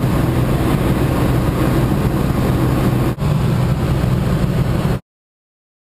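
Light propeller aircraft's engine droning steadily in the cabin during flight, briefly interrupted a little after three seconds, then cutting off to dead silence about five seconds in.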